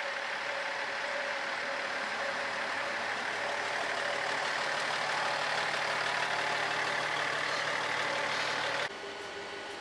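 Diesel railcar engine idling, a steady hum with hiss. Nearly nine seconds in it cuts off abruptly to a quieter, even hum.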